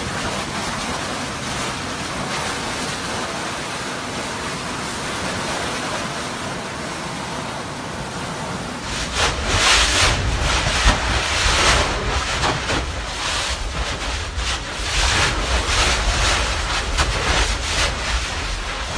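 A steady hiss, then from about nine seconds in a Kīlauea lava fissure erupting: a low rumbling noise broken by repeated short bursts as lava spatters.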